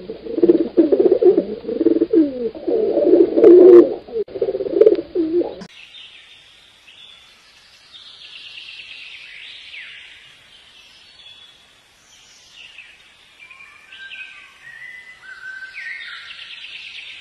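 Feral pigeon cooing, a run of low, wavering coos that stop abruptly about five and a half seconds in. After that come fainter small-bird chirps, many quick falling whistles.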